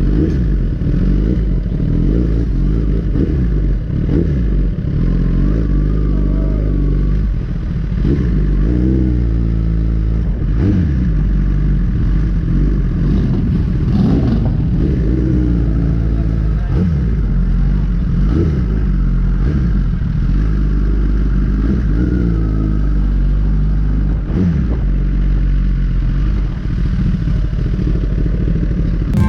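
Suzuki GSX-R sport bike engine running while riding, its pitch rising and falling again and again as it accelerates and shifts through the gears, over a steady low rumble of wind noise on the microphone.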